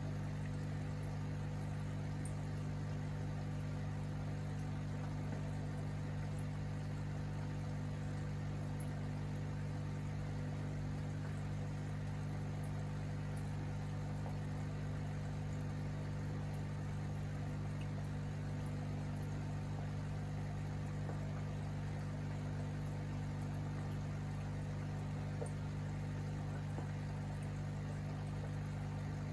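Aquarium air pump running: a steady low electric hum, with faint bubbling of water from the aerated tank.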